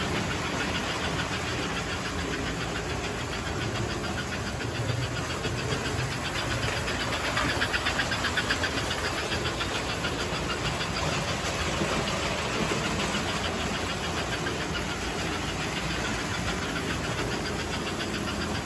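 Several toy electric trains running together around a layout: a steady rumble and clatter of metal wheels and motors on metal track, with a fast, even clicking over it.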